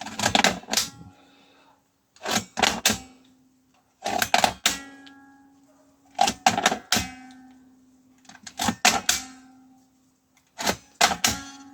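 Lithium-ion cells being snapped one by one into the bays of a multi-bay battery charger: six rounds of sharp plastic-and-metal clicks about two seconds apart, each followed by a short ringing tone that fades away.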